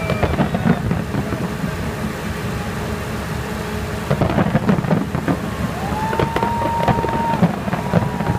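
Large fireworks display going off: a continuous low rumble of bursts with rapid crackling, thickest at the start and again from about four seconds in. A long steady whistle sounds over it about six seconds in.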